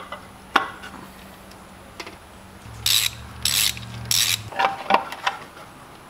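Hand ratchet wrench clicking in three short bursts while loosening bolts on the Iron Duke four-cylinder engine's top end. A few sharp metallic clicks and knocks come just after, as the parts are handled.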